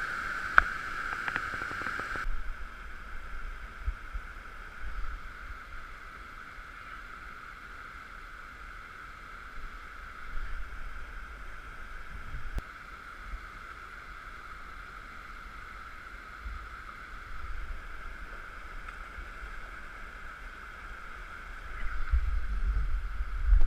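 Steady rushing of a brook's running water, with wind buffeting the microphone in gusts that grow stronger near the end.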